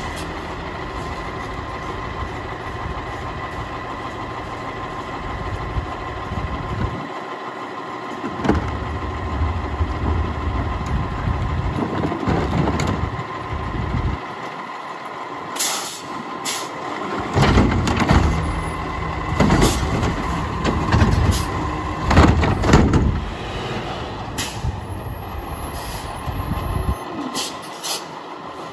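Heil front-loader garbage truck with a Curotto Can arm working, its diesel engine running steadily, with a run of loud metallic clanks and bangs through the middle.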